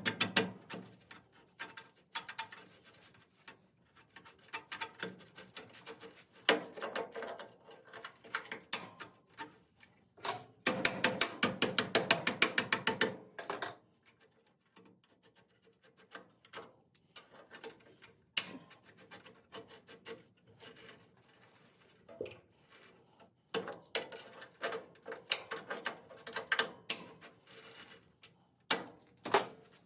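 Hand tools clicking and knocking against a rusted part as vise grips are worked to free it, with a fast run of ratchet-like clicks for a couple of seconds about a third of the way through.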